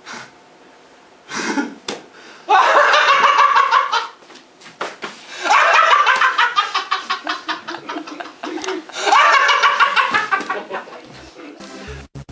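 Theatre audience laughing in three loud waves, with scattered clapping among the laughter. Electronic music with a steady beat cuts in near the end.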